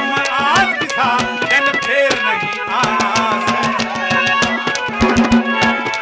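Haryanvi ragni folk music: a man sings a short gliding phrase over the first two seconds, then the band plays on with a harmonium holding a steady note under fast hand-drum and clay-pot beats.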